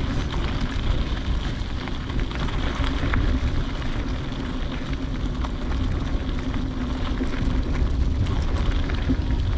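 Wind buffeting the microphone: a steady, rumbling rush that swells and dips, with scattered faint ticks.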